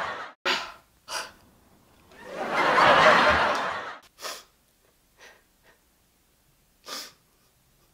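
A woman crying: a few short breaths, then a loud, drawn-out breathy wail lasting about two seconds, followed by short sobbing gasps and sniffles that grow fainter.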